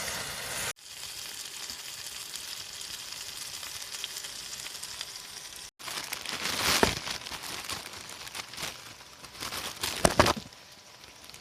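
Food sizzling and crackling in a frying pan, a steady hiss with scattered pops, broken by two abrupt cuts.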